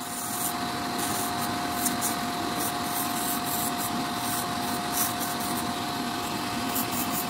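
Electric podiatry drill with a white rounded buffing bit running at a steady pitch and grinding down thick heel callus, a continuous rubbing, sanding sound.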